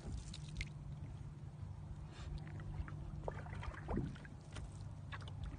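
Light water splashes and drips around a canoe on a lake as a wooden paddle is worked and a cat paws at the surface, over a low steady rumble.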